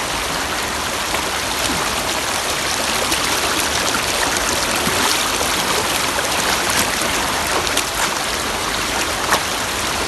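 Fast-flowing shallow river rushing steadily, heard up close while wading across it, with a few faint splashes and clicks.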